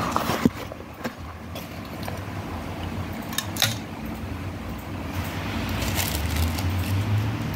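Light clicks and taps of a metal fiber optic cleaver being handled and set down on a cloth, with a couple of sharp clicks about three and a half seconds in. A low steady hum grows louder near the end.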